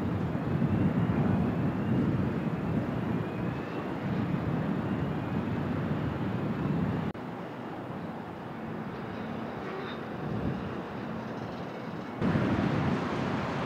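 Outdoor harbour ambience: a steady low rumbling noise. It drops abruptly in level about seven seconds in and comes back louder near the end.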